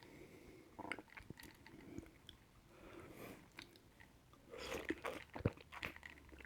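Close-miked mouth sounds: faint, scattered wet smacks and clicks, busiest about five seconds in.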